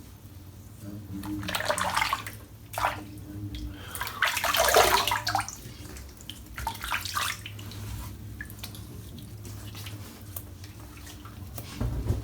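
Water splashing in a sink in three bursts, the loudest about four to five seconds in, with a steady low hum underneath.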